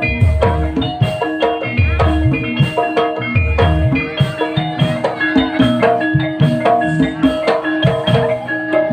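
Javanese gamelan music: bronze metallophones strike a repeating melody of ringing notes over deep thuds from the kendang drum.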